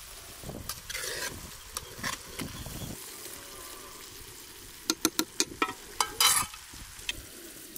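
Food sizzling as it fries in oil in a metal pot while being stirred, with a metal spoon scraping the pot. A run of sharp clinks and knocks against the pot comes about five seconds in.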